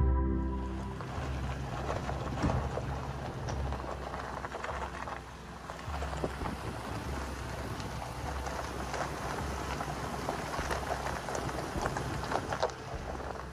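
Pickup truck's tyres rolling over a gravel road: a steady crunching rush dense with sharp ticks of loose stones, over a low road and engine rumble.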